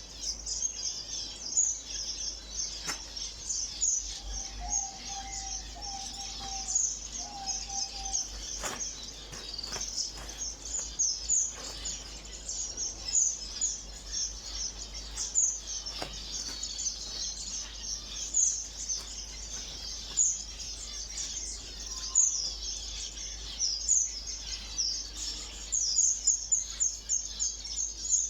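Flock of small caged ornamental birds chirping continuously, many short high-pitched calls overlapping. A few lower repeated notes come in between about four and eight seconds in.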